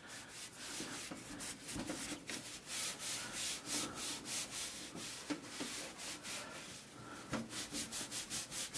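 Wiping strokes rubbing over a desktop computer case's side panel freshly sprayed with Simple Green cleaner, several quick strokes a second.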